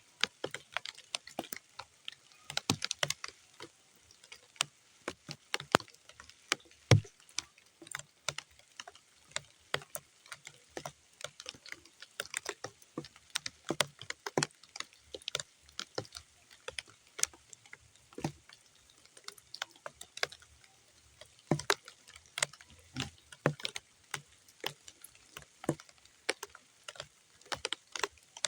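Raindrops falling on muddy ground as sparse, irregular drips and taps, several a second, with a louder, deeper plop about seven seconds in.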